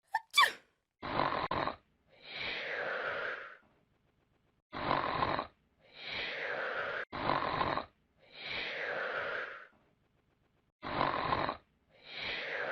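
A person snoring: a rough, buzzy snore on each in-breath, then a longer breathy out-breath, repeated about four times with short pauses between.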